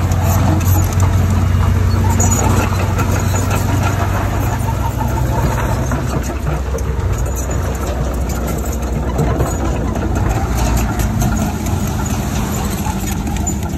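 Heavy diesel engine of earthmoving machinery running steadily, with scattered clicks and rattles. Its low hum shifts down about six seconds in.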